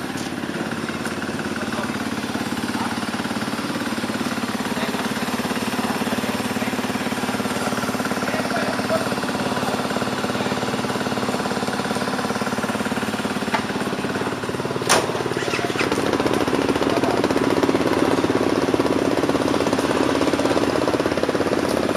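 Off-road motorcycle engine running steadily at low revs with a rapid beat; about sixteen seconds in the revs and level pick up a little. A single sharp click sounds just before.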